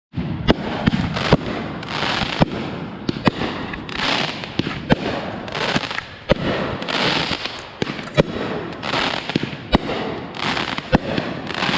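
Fireworks going off: sharp bangs at irregular intervals of about a second, with continuous crackling and hissing between them.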